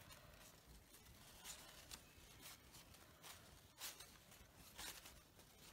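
Near silence with a few faint, brief rustles as fabric rose petals and a fabric leaf are handled.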